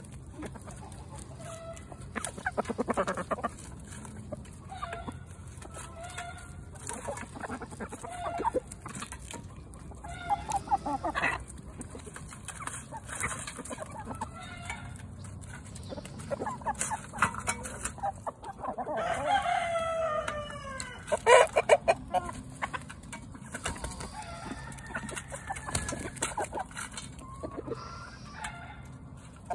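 Chickens clucking as they peck at a pan of crawfish. A rooster crows once about two-thirds of the way through, and a few sharp taps of beaks on the steel pan stand out just after.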